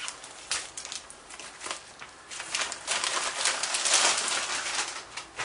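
Handling noise from a tablet in its new case being moved and rubbed: irregular rustling with a few sharp clicks, loudest between about two and four and a half seconds in.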